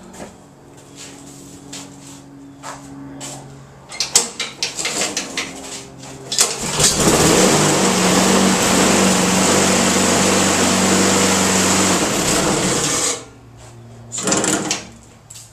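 Honda walk-behind lawn mower engine starting: a run of clicks and knocks, then it catches about six and a half seconds in, runs loud for about six seconds and cuts off suddenly. The owner says the mower has a bent crankshaft.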